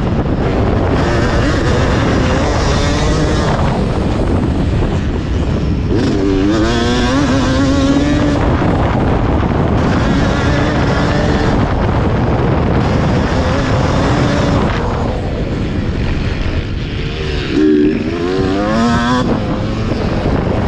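1991 Yamaha WR250 two-stroke single-cylinder engine under race throttle, its pitch rising and falling continuously with throttle and gear changes. It climbs sharply about six seconds in and again in quick repeated sweeps near the end.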